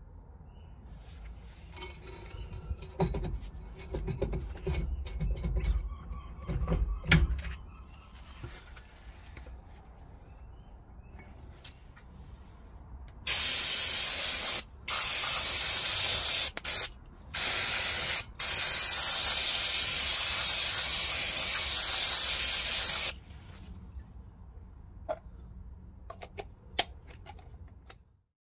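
Aerosol can of brake cleaner spraying onto a drum brake assembly: a loud, even hiss in several bursts with short breaks between them, the last burst about five seconds long. Earlier, a few low knocks and rattles.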